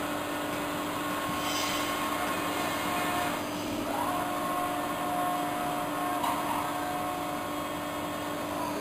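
Evashred EV110E Panther shredder running through a foam rubber bale: a steady drive hum with higher whining tones that shift and glide in pitch about four seconds in and again about six seconds in.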